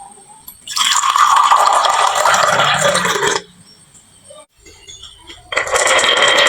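A stream of glass marbles rolling and clattering down a wooden marble run, in two long rattling runs: the first starts just under a second in and stops about three and a half seconds in, the second starts near the end.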